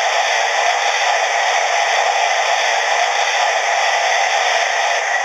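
Boiler blowdown effect from a Hornby TTS sound decoder for the BR Class 8 4-6-2 Duke of Gloucester: a loud, steady hiss of escaping steam that cuts off suddenly at the very end.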